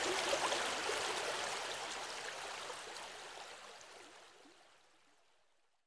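Small river flowing, a steady rush of water with small gurgles, fading out evenly to silence over the last four seconds.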